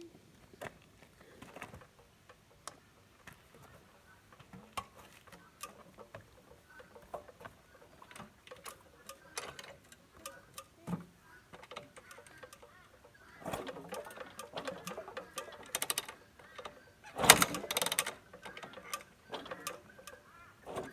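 Yamaha YZ250F single-cylinder four-stroke dirt bike being kick-started without firing: scattered clicks and knocks, then two louder clattering bursts as the engine is kicked over, the loudest about three-quarters of the way through. No engine running yet.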